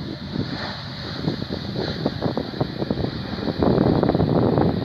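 Wind buffeting the phone's microphone in irregular gusts, heaviest near the end, over a faint steady high whine from a distant airliner's jet engines.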